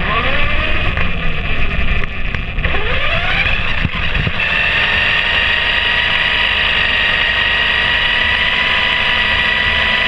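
Small remote-controlled target car driving over asphalt. Its motor whine rises in pitch twice as it speeds up in the first few seconds, then holds steady and high over constant road and tyre noise.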